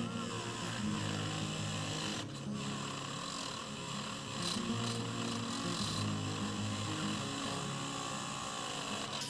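Background music over the whine of a small power tool cleaning a die-cast toy's axles. The tool's pitch wavers up and down.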